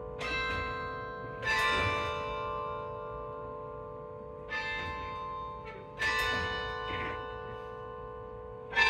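A 78-bell carillon played by hand: slow, separately struck chords of bells, each ringing on long and overlapping the next over a steady low hum, with the loudest strike just at the end.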